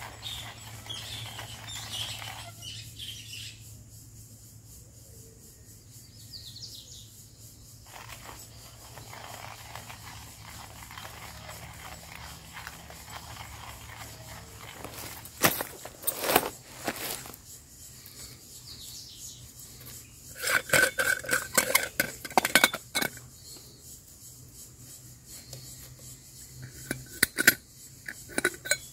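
Metal camping cookware and utensils clinking and knocking against each other in three short clusters over the second half, while bush coffee is being prepared.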